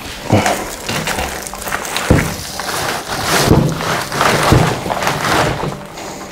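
Plastic rustling and crinkling as a resin-soaked liner in its plastic sleeve is handled and worked along a pipe packer by gloved hands, with a few dull thumps.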